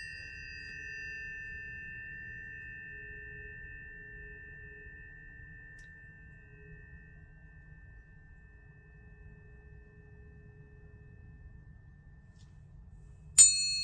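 Planetary tuning fork ringing with a pure, steady tone that slowly fades away; near the end another fork is struck sharply and rings on at a higher pitch.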